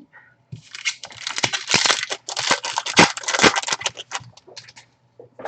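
Foil trading-card pack wrapper crinkling and tearing as it is ripped open by hand, a dense crackle with sharp snaps from about half a second in until near the end.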